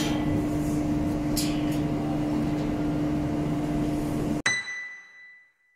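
A steady mechanical hum with a held low tone and a light rattle, with a couple of faint clinks, stops abruptly about four and a half seconds in on a ringing metallic ding that fades away.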